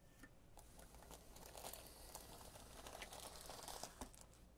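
Near silence with a faint rustling as a homemade pin comb is drawn through the paint floating on a marbling bath, swelling slightly through the middle, with a couple of small ticks.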